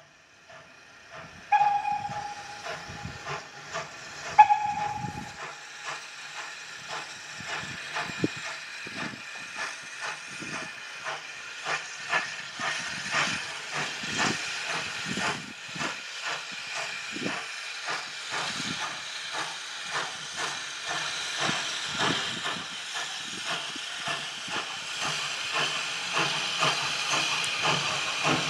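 SECR C class steam locomotive giving two short whistle toots, about a second and a half and four and a half seconds in, then working steadily with evenly spaced exhaust beats over a constant hiss of steam, growing louder as it approaches.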